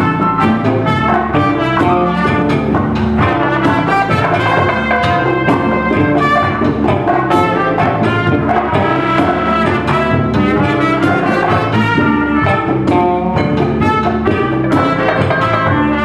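A live band playing jazz-leaning music, with trumpet and saxophone leading over electric guitar and a drum kit.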